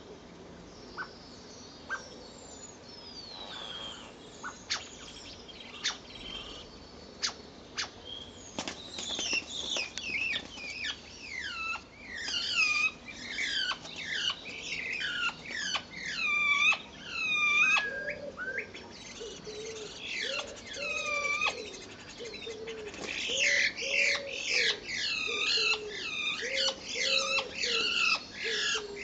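Starlings calling. At first there are scattered sharp clicks and a single falling whistle. From about a third of the way in comes a dense run of high, downward-sweeping calls, several a second, and from a little past the middle a lower wavering call repeats beneath them.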